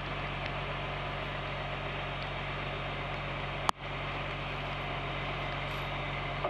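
Crane truck's diesel engine running steadily, powering the boom as it lifts a tank turret, under a constant hiss of rain on the microphone. A single sharp click about three and a half seconds in.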